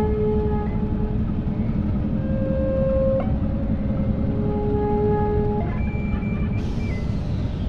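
Layered sustained electronic tones over a steady low rumble, the tones jumping abruptly to new pitches every couple of seconds, with a short hiss near the end.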